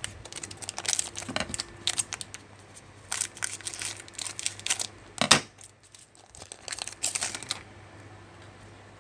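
Crinkling and rustling of trading cards and their packaging being handled, in irregular bursts with one sharper snap about five seconds in, falling quiet near the end.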